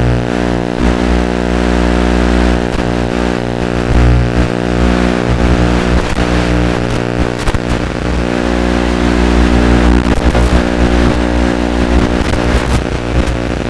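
Axial Scorpion RC rock crawler running, heard from on board: a steady buzzing hum made of many fixed, even tones with a low drone, broken by scattered clicks and crackles as it crawls through grass and leaves.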